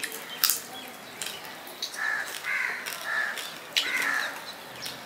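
A crow calling about four times in quick succession, two to four seconds in, over sharp mouth clicks and smacks from chewing a mouthful of rice and fish.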